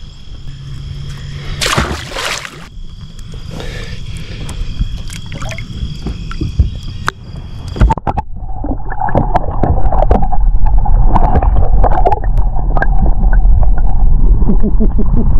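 Crickets chirping steadily with a splash about two seconds in. About eight seconds in the sound cuts to gurgling, sloshing water heard through an underwater camera, with a loud low rumble.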